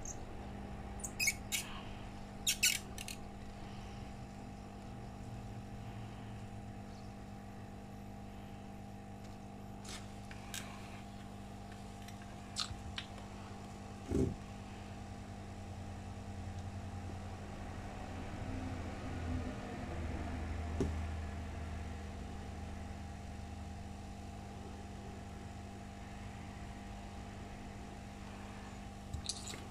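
Steady low hum at the soldering bench, with a handful of short sharp clicks and taps as the soldering iron and tools are worked on a laptop mainboard. A low rumble swells slightly just past the middle.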